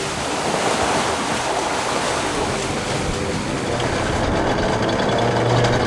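Steady rush of wind and water noise aboard a sailing catamaran under way, with a faint low hum about five seconds in.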